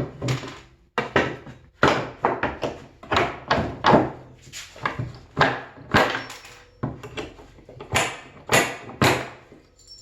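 Hammer striking pallet boards and nails to knock the nails out: a quick, uneven series of sharp blows, often in pairs, about two a second.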